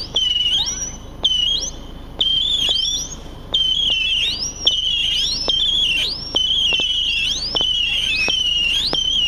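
Marvel Fireworks Mini Missiles cake firing whistling missiles in quick succession, about one a second. Each shot is a sharp pop followed by a high whistle that sweeps up in pitch at its end, and the whistles overlap from one shot to the next.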